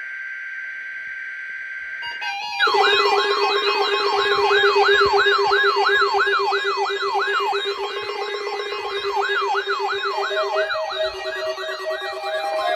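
NOAA weather alert radios sounding their alarm for the weekly test: first a steady electronic tone, then about two and a half seconds in, a fast warbling siren-like alarm, about three sweeps a second, layered over steady pulsing beeps. Near the end a second pulsing beep of a different pitch joins in.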